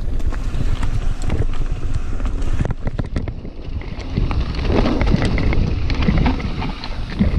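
Wind buffeting the microphone as a mountain bike descends a rough dirt trail, with a steady rumble and many quick knocks and rattles from the bike's tyres and frame going over roots and stones.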